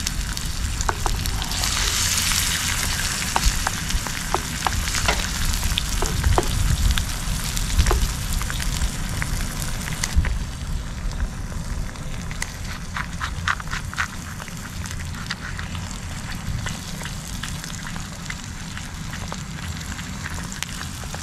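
An egg frying in a nonstick pan over a Trangia alcohol burner: a steady sizzle with scattered pops and clicks, loudest in the first few seconds and quieter after about ten seconds.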